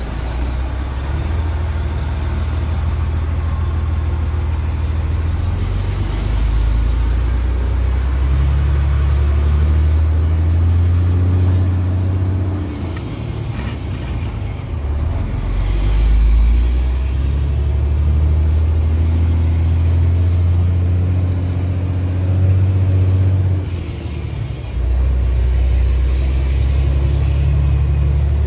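Peterbilt semi truck's diesel engine pulling a heavy load, a loud low drone that holds steady and then drops away twice as gears are changed. A faint high whine comes and goes over it.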